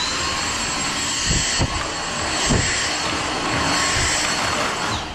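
Dyson cordless stick vacuum running with a steady high-pitched whine over the rush of its airflow, with a few low thuds. It switches off near the end, its whine falling away.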